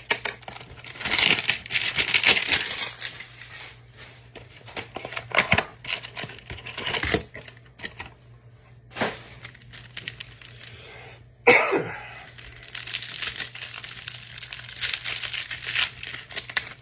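Foil trading-card pack wrappers crinkling and tearing, with cards and packaging handled in irregular rustles and clicks. A sudden louder burst comes about eleven and a half seconds in.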